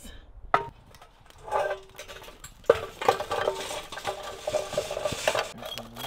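Lit charcoal briquettes dumped from a metal chimney starter into a portable charcoal grill and spread with a metal tool. A couple of sharp metal knocks come first, then a few seconds of clattering and scraping as the coals tumble and are raked.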